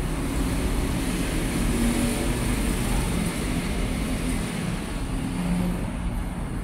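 Steady low rumbling background noise with an even hiss, without distinct strikes or a rhythm.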